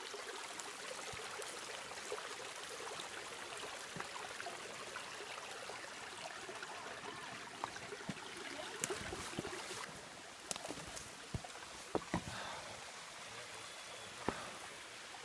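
Shallow creek trickling over rocks, a steady hiss of running water. In the second half, footsteps on stones and sticks add several sharp clicks and knocks.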